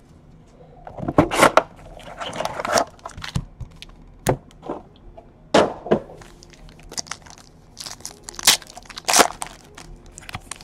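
Foil-wrapped trading card packs and their cardboard hobby box being handled: scattered sharp crinkles, snaps and tearing, with a pack torn open near the end.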